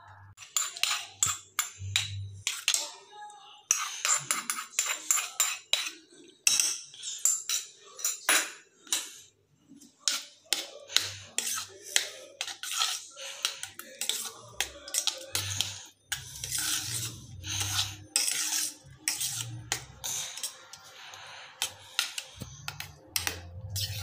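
Steel spoon stirring thick curd rice in a metal pressure cooker pot, clinking and scraping against the pot's sides and bottom in quick irregular strokes.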